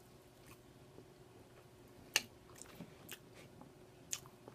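Chewing food, with soft, wet mouth clicks and smacks scattered through; the sharpest comes about two seconds in.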